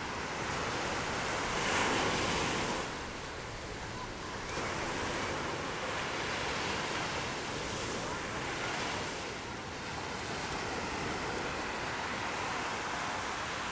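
Small shore-break waves breaking and washing up the sand: a steady surf wash that rises and falls with each wave, loudest about two seconds in.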